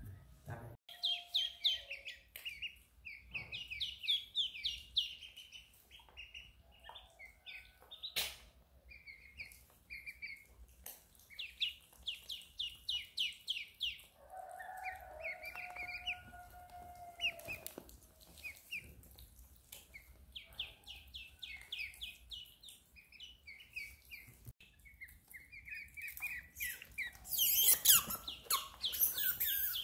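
A pet otter chirping: rapid runs of short, high squeaks, repeated over and over. A louder rush of noise comes near the end.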